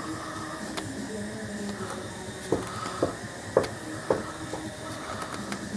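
Four light clicks about half a second apart, from a tool working at a car's spin-on oil filter from underneath, against a faint steady hum.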